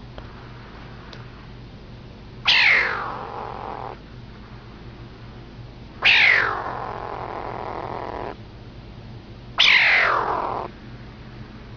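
Kitten calling three times, each call starting loud and high and sliding down in pitch, the second one held longest.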